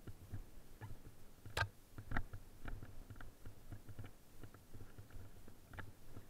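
Fat bike rattling and clicking while ridden over snow: irregular light ticks and soft knocks several times a second, with two sharper clicks about a second and a half and two seconds in.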